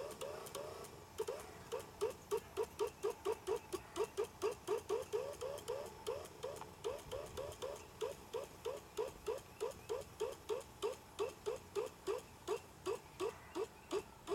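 An excited dog yipping over and over in a steady, unbroken string of short, high yips, about three or four a second.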